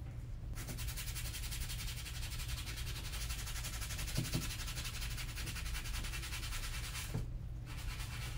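Rapid scrubbing of a wet brush over a black leather sneaker as it is cleaned, starting about half a second in and breaking off briefly about seven seconds in, over a steady low hum.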